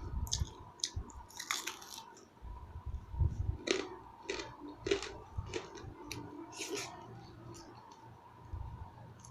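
Close-up eating sounds: chewing and crunching food, heard as a string of short, sharp mouth clicks and crunches.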